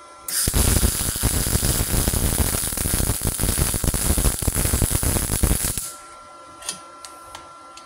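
MIG welding arc of a Multipro MIG MAG 200S G-SP running 0.8 mm wire under pure CO2 gas: a loud, dense crackling sizzle. It starts about a third of a second in and stops sharply near six seconds, when the trigger is released. Before and after it only a faint steady high tone remains.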